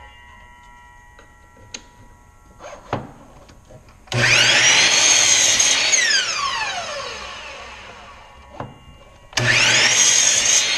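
Bosch miter saw cutting twice, starting about four seconds in and again near the end: the motor whines up to speed, runs through a cut of a strip of herringbone stock, then the pitch falls away as the blade winds down. A few light clicks come before the first cut.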